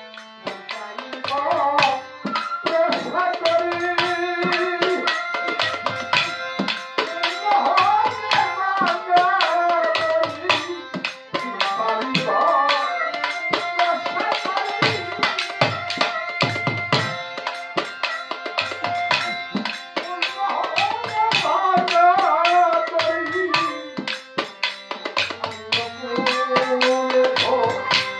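Male voice singing a Bengali devotional Malaya sangeet over a harmonium's held chords and a hand drum beating a steady rhythm. The vocal line comes and goes between instrumental passages.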